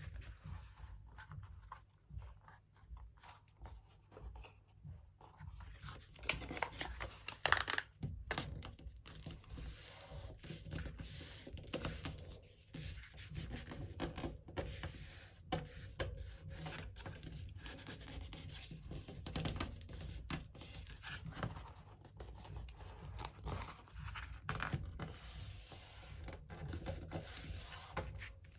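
Paper and cardboard being handled on a tabletop: irregular rubbing and scraping with light knocks, and one louder knock about seven seconds in.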